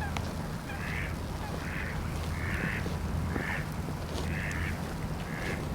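Footsteps crunching in fresh snow at a steady walking pace, about six steps, over a steady low rumble.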